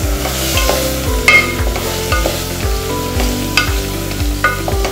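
Wooden spatula stirring raw rice and moong dal through hot ghee in an aluminium pressure cooker, with a light sizzle and the spatula knocking and scraping against the pot a few times.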